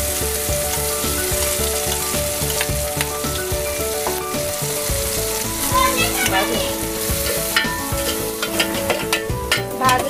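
Coarsely ground dry-coconut, garlic and cumin masala sizzling as it goes into hot oil and cooked tomato in a steel pot. Near the end a steel ladle stirs it, clicking and scraping against the pot.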